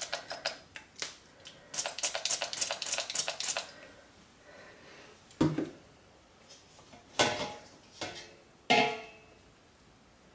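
Kitchen utensils clattering against a crock pot and containers: a run of quick rattling clicks, then four separate knocks with a short ringing tone.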